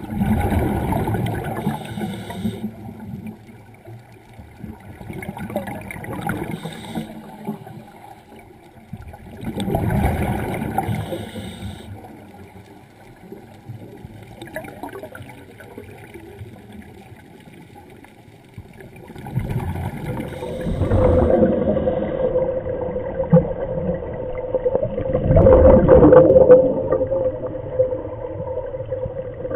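Scuba regulator exhalations underwater: a bubbling, gurgling rush that swells and fades every few seconds as divers breathe out. From about twenty seconds in, a steady hum runs underneath.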